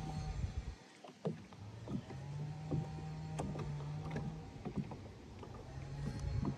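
Electric bow-mount trolling motor humming in short runs, cutting out and starting again a few times. A few light knocks come over the hum.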